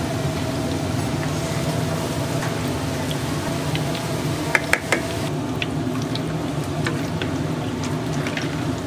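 Battered snacks deep-frying in hot oil: a steady bubbling hiss over a kitchen hum, with a few sharp clicks about halfway through.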